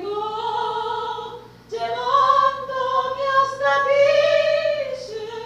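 A woman singing solo into a handheld microphone, holding long notes. She pauses briefly a little before two seconds in, then sings a phrase that climbs and falls back near the end.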